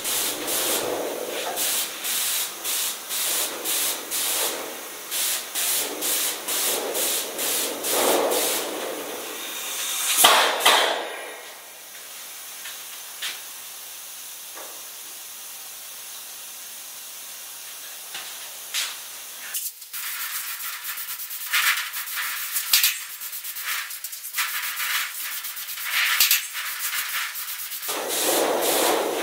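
Airless spray gun fed by a Graco Xtreme 45:1 sprayer, hissing in short repeated bursts as the trigger is pulled and released on each rapid pass of insulation coating. The spraying stops for several seconds partway through, leaving only a low steady background, then starts again in short bursts.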